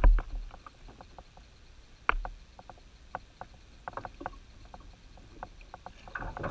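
Scattered clicks and two louder knocks, one at the start and one about two seconds in, as rod, reel and plastic kayak are handled while a hooked bass is reeled in. Near the end the bass splashes as it thrashes at the surface beside the kayak.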